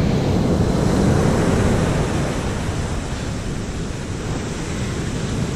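Ocean surf breaking and washing up the beach, a little louder in the first couple of seconds, with wind rumbling on the microphone.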